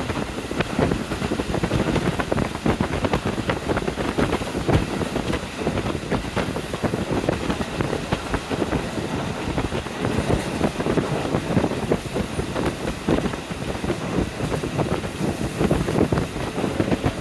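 Wind buffeting the microphone through the open window of a moving KiHa 40 diesel railcar, over the railcar's running noise. The wind noise is loud and gusty and does not let up.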